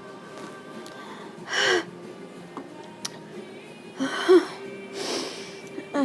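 A woman's sharp, voiced gasping breaths, three short catches about a second and a half, four seconds and five seconds in, as a sneeze builds and stays stuck during an allergy sneezing fit. Faint music plays steadily underneath.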